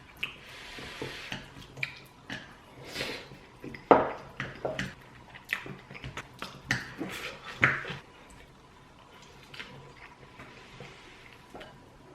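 Dishes and utensils clinking and knocking irregularly as food is served and eaten, with the sharpest knocks about four seconds in and near eight seconds.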